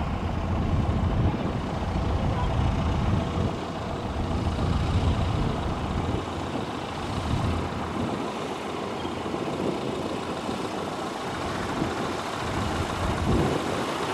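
Piper PA-38 Tomahawk light aircraft's four-cylinder piston engine and propeller running at low taxi power, a steady low drone, a little quieter in the second half.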